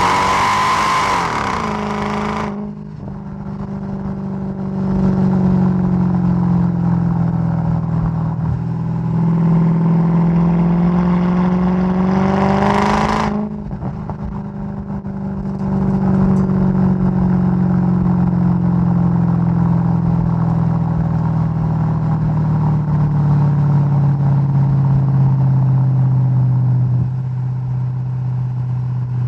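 Supercharged V8 of a Mercedes-Benz E 55 AMG W211 under hard acceleration, its pitch rising, then cut off about two and a half seconds in as the throttle is lifted. The engine pulls up again to a second hard burst near the middle, lifts off, and then cruises with its note slowly falling.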